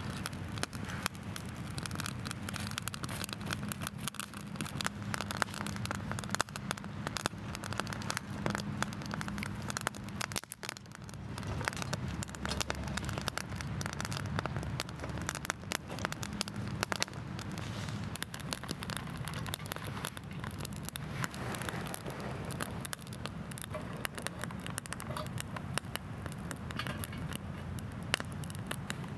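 Small twig fire crackling inside a stainless steel folding wood stove, a dense run of quick sharp cracks and pops, with sticks being laid on.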